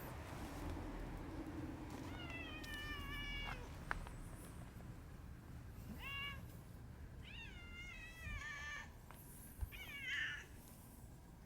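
Cats meowing: four separate drawn-out meows, most of them sliding down in pitch, the longest about a second and a half. A single sharp click comes about four seconds in.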